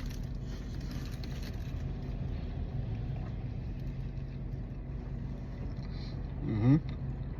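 Steady low hum inside a car cabin with the engine idling. A brief murmur of a person's voice comes about six and a half seconds in.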